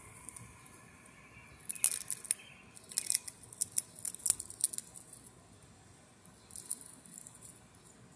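Black squirrel crunching and cracking a nut up close: a quick run of sharp crunches lasting about three seconds, then a few more near the end.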